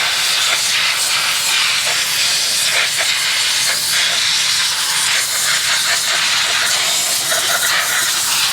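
Compressed-air blow gun hissing in a long steady blast, blowing sawdust and dirt out of a chainsaw.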